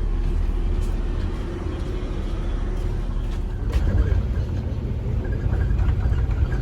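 Bus engine running, a low steady rumble heard from inside the cabin, growing louder about four seconds in, with a few light clicks.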